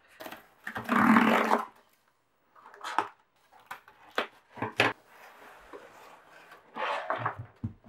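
A zip tear strip is ripped along a corrugated cardboard book mailer in one rasping pull about a second in. The cardboard is then folded open with several sharp knocks and rustles, and there is another rustle near the end as a fabric drawstring bag is slid out.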